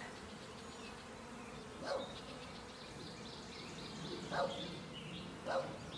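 Honeybees buzzing in a steady, many-winged hum around an open hive and bee package, with a few short louder moments about two, four and a half, and five and a half seconds in.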